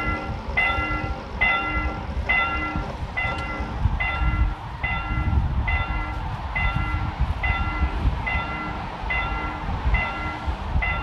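Railroad crossing warning bell ringing over and over, about three rings every two seconds, signalling that a train is approaching. A low rumble runs underneath.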